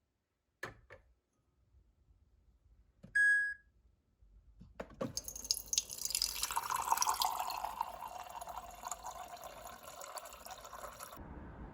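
A couple of faint clicks, a short electronic beep, then water running into a cup or vessel for about six seconds before stopping abruptly.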